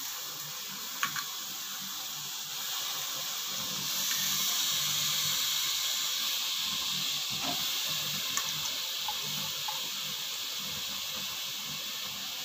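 Wet sprouted moth beans sizzling in hot oil and masala in a pressure cooker: a steady hiss that grows a little stronger about four seconds in, with a few light clicks of a steel ladle against the pot.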